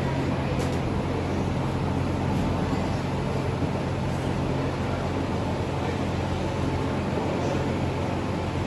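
Steady low hum under an even wash of background noise, with no distinct knocks or clicks.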